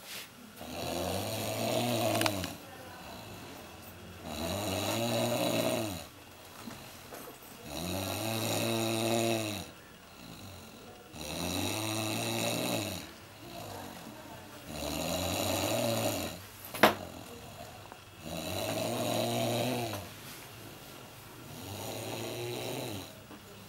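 A sleeper snoring in a steady rhythm: seven long snores, one about every three and a half seconds, each with a low buzzing pitch. A single sharp click comes about two-thirds of the way through.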